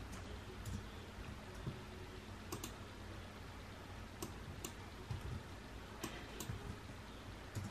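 Computer mouse clicking: short, sharp clicks at uneven intervals, some in quick pairs, over a faint steady hiss.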